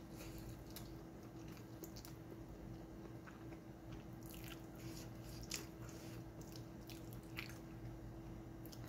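A person eating spaghetti at close range: slurping noodles into the mouth and chewing, with scattered wet mouth clicks and smacks.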